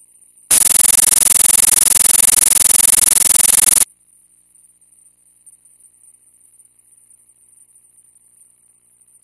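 A loud burst of harsh static about three seconds long on an otherwise empty soundtrack, starting abruptly about half a second in and cutting off suddenly. Around it there is only a faint high hiss.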